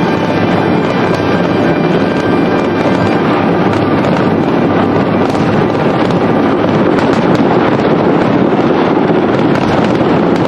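Fireworks display: many small pops and bangs from aerial shells run together into a steady, dense crackle, with no single burst standing out.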